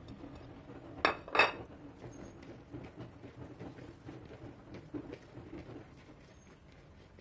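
A plate clinks twice about a second in. Then comes a soft, uneven rustle and patter of a hand mixing bulgur salad (kısır) with chopped cucumber, tomato and lettuce in a bowl.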